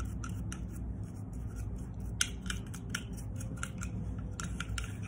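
A toothbrush scrubbing a Glock pistol's polymer frame: quick, irregular scratchy brushing strokes, with one sharper click a little past two seconds in.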